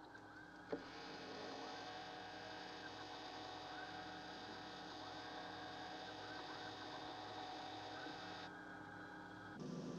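Film sound effect of spacecraft electronics: a low, steady electronic hum with a slow, even pulse, one click about a second in, then faint higher warbling tones over the hum.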